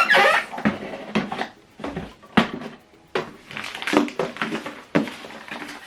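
Irregular plastic clicks, knocks and light rattles, several a second, from an HP DeskJet 4220e inkjet printer's paper tray being handled.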